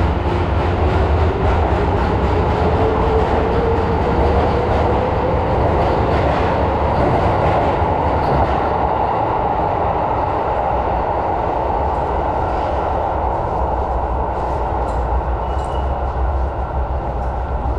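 Tokyo Metro Marunouchi Line subway train running: a loud, steady rumble and rail noise, with a whine that rises in pitch over the first few seconds.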